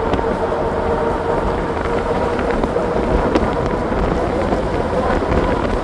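Heybike Ranger S e-bike running at full throttle near top speed: a steady whine from the 1000 W hub motor and fat tyres, under loud wind rushing on the microphone.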